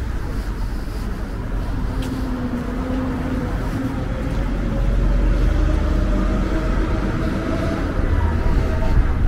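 Low rumble of a motor vehicle engine running out of sight, with a faint hum that rises slowly in pitch, getting a little louder about halfway through.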